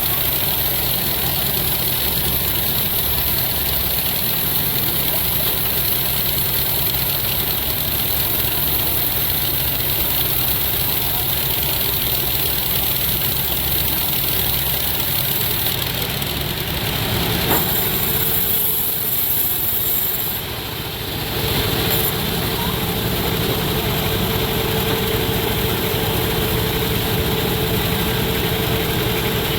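Sawmill machinery running steadily with a loud, even mechanical drone. A little past halfway it briefly drops in level, and afterwards a steady humming tone stays in the sound.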